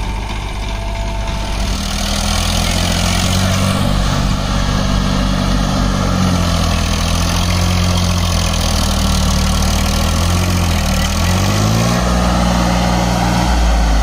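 Massey Ferguson tractor's diesel engine running under load as it pulls a loaded trailer through mud, growing louder as it approaches; the engine note dips briefly near the end and picks up again.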